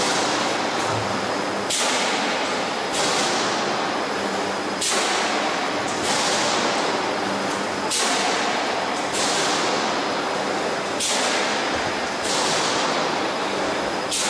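Pressed-steel transformer radiator production line running: steady machine noise broken by a sharp stroke followed by a fading hiss, repeating roughly every one to two seconds.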